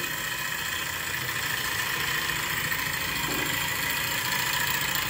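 Steady background hum and hiss, even throughout with no distinct rhythm or strikes, and one faint short sound about three seconds in.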